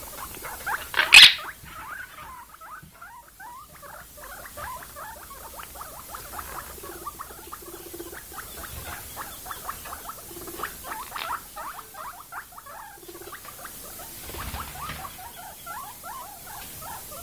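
Guinea pig and monk parakeet making rapid, soft chattering squeaks at close range, with one sharp, loud squeak about a second in.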